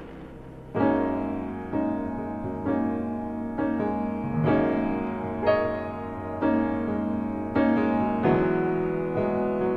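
Background piano music, chords struck about once a second.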